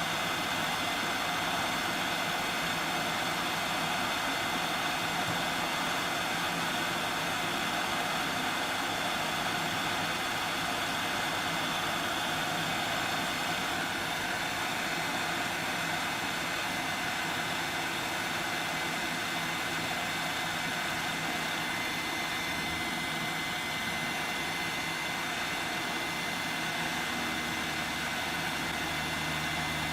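Yihua 959D hot air rework station blowing hot air at 300 degrees, desoldering surface-mount resistors: a steady rush of air with a thin steady whine. A low hum joins near the end.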